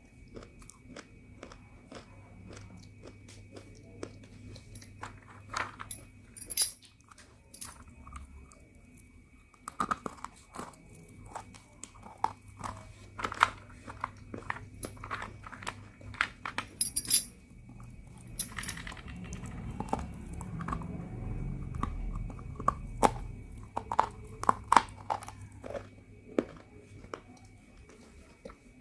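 Pieces of roasted multani mitti (fuller's earth clay) being bitten and chewed close to the microphone: a long run of sharp, irregular crunches, with a low rumble for a few seconds past the middle.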